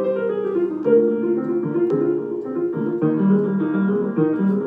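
Piano accompaniment playing an instrumental interlude between sung verses: repeated chords under a moving melody line.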